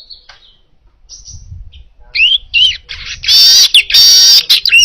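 Weaver bird (manyar) singing: soft chirps at first, then from about two seconds in loud whistled notes that rise and fall, followed by two long, harsh buzzy trills.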